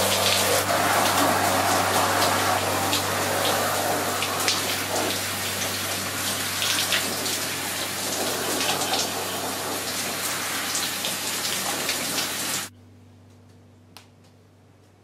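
Shower spray running, hitting a wet plastic suit and tiled walls, with a low steady hum underneath. The water noise cuts off suddenly near the end, leaving only the hum.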